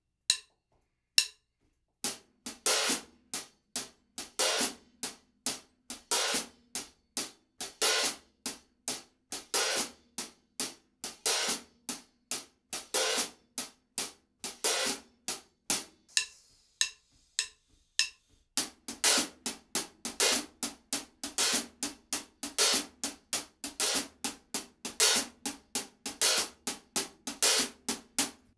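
Hi-hat played alone with a drumstick in a funk pattern, '1 and a 2 and 3 and a 4 and', opened briefly on the 'a' of beats 1 and 3 so those strokes wash longer. It is played first at 70 bpm. After a short pause it starts again at a faster 100 bpm. A few evenly spaced clicks count it in at the start.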